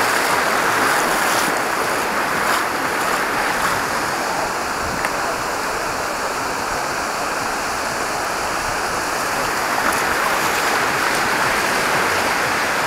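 Sea waves washing onto a beach: a steady rushing of surf with no break.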